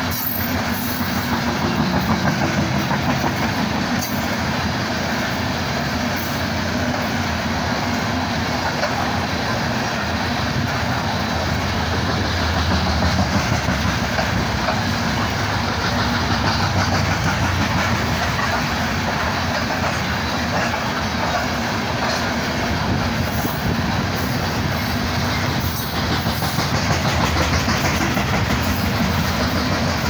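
Loaded coal hopper cars of a freight train rolling past close by: a steady rumble and clatter of steel wheels on the rails, swelling and easing slightly as the cars go by.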